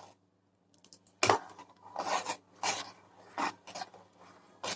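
Spoon scraping against a pan while stirring a thick milk-and-cake mixture, in a series of separate rasping strokes.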